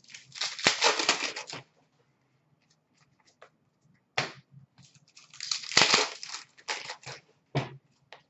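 A foil hockey card pack wrapper being torn open and crinkled: two bursts of crackling about a second and a half each, with a few sharp clicks between as cards are handled.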